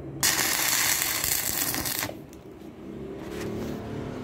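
Stick (arc) welding: the electrode strikes an arc on the steel hinge and door frame and crackles for about two seconds, a short weld tacking the hinge in place, then the arc is broken and it stops sharply.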